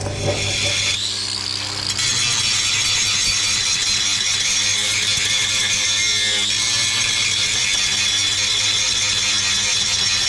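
A handheld power tool, likely an angle grinder, spins up about a second in, its pitch rising, and then runs steadily at full speed.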